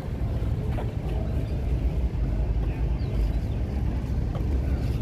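Steady low rumble of wind buffeting the microphone, with faint voices of people around.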